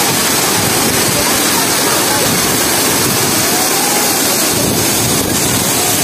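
Mantokha waterfall's water crashing down: a loud, steady rush.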